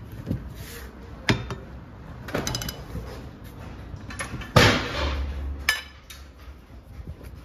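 Metal knocks and clanks of a long wrench working the pinion nut of a Tofaş rear differential, tightening it to set the pinion bearing preload on the crush sleeve, with a short run of rapid clicks and one louder clank a little past the middle.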